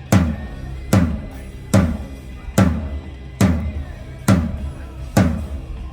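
One drum of a drum kit struck steadily during a sound check, seven hits about 0.85 s apart, each ringing out low before the next.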